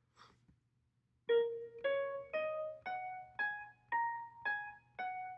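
Notation software's piano playback of the Jiao pentatonic mode played on black keys from A♯: single notes about two a second, starting after a second of quiet, climbing an octave and then starting back down.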